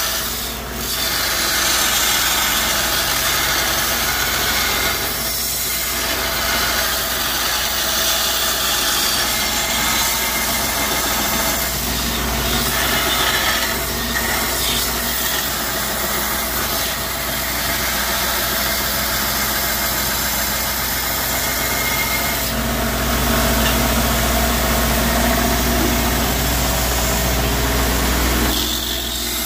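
Belt grinder running steadily while a steel knife blank cut from a lawnmower blade is pressed against the belt and ground: a continuous grinding noise over the steady hum of the grinder's electric motor.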